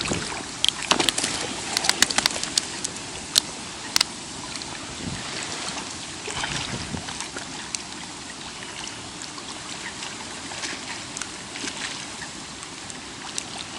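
A freshly landed fish being unhooked: a quick burst of sharp slaps and clicks in the first four seconds, then softer wet rustling and sloshing with the odd click.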